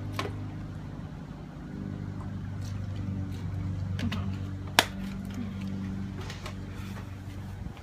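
Lawnmower engine running steadily, with a few sharp clicks over it, one loud click about five seconds in.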